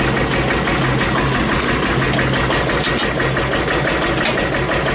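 1941 Witte 12-horsepower single-cylinder diesel generator set running steadily with a rapid, even firing beat. Two sharp clicks come about three and four seconds in as the disconnect switch box is closed.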